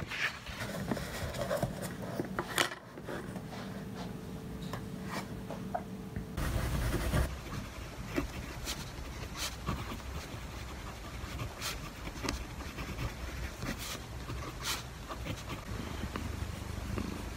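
Small handling sounds of paper and a pen: paperback pages rustling, with scattered light taps and scratches and a brief louder rustle about six seconds in. Near the end a cat purrs.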